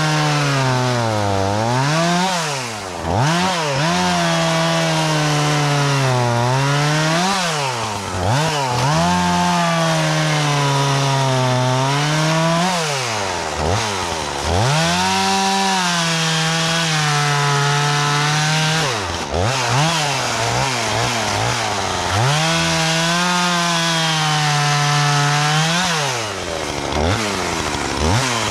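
Two-stroke chainsaw cutting logs: the engine holds at high revs through each cut, then drops and revs back up between cuts, five times over.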